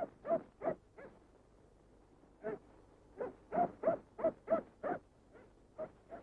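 A run of about fifteen short, sharp animal calls in irregular clusters: three or four at the start, a gap of over a second, then a quicker string of them.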